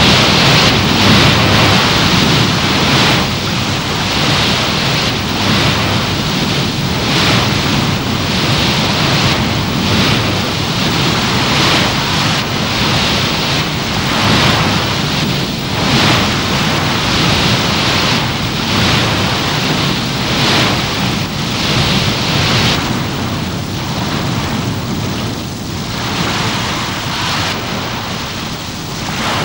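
Sea water rushing and breaking along a ship's hull, with wind, swelling and easing every second or two.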